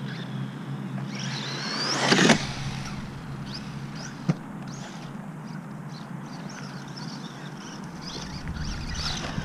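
RC truggy's electric motor whining up in pitch as it accelerates, then a loud impact about two seconds in, the truggy crashing or landing hard. A sharp knock follows a couple of seconds later, then short bursts of motor whine as the throttle is blipped.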